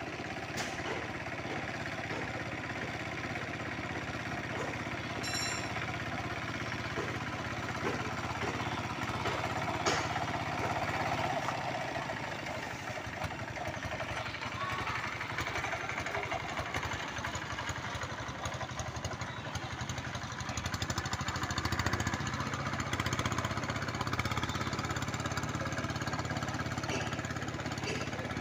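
Tractor engine running steadily while plowing a rice paddy, with a few sharp clicks about 1, 5 and 10 seconds in.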